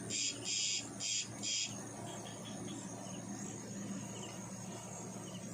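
Night insect calling in loud, hissy, high-pitched pulses, about two a second, which stop about two seconds in. Faint insect chirps follow.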